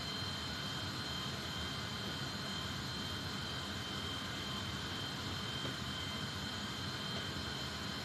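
Steady jet aircraft noise inside a C-17 Globemaster III's cargo hold: an even, wide hiss with two high, steady whining tones over it.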